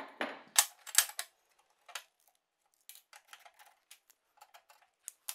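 Small hard objects handled on a steel welding table: a few sharp clicks and taps of a steel rule and pencils being set down in the first second or so, then a run of fainter light ticks.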